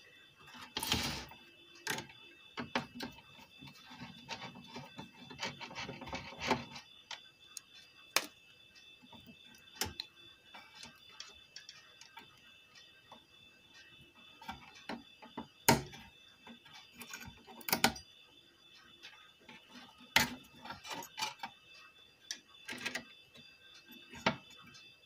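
Screwdriver and hands working inside an opened V-Guard Prime 1050 inverter: scattered sharp clicks and knocks of the tool, screws and metal and plastic parts as the circuit board is unscrewed and loosened, over a faint steady high hum.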